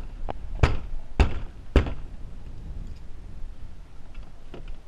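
Four dull thuds about half a second apart in the first two seconds, then only faint background.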